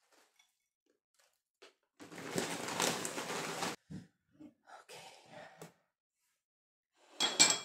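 Plastic packet of crispy fried onions crinkling for nearly two seconds as it is handled and set aside, followed by a few light taps of things set down on the table and a short rustle near the end.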